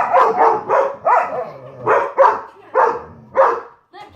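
Dogs barking, about ten short, sharp barks in uneven bunches.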